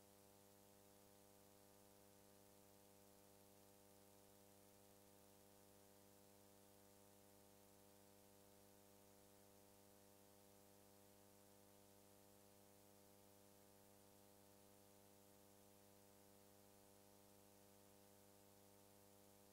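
Near silence: only a faint, steady electrical hum with hiss.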